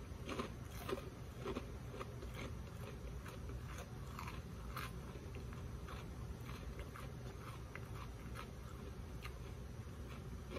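A person chewing a mouthful of crispy Funyuns onion-flavored rings, with irregular crunches throughout, over a steady low hum.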